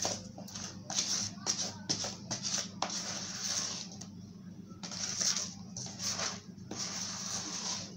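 Spatula beating thick butter-and-sugar icing in a plastic bowl: a run of irregular scraping strokes, some short and sharp, some drawn out for about a second, over a steady low hum.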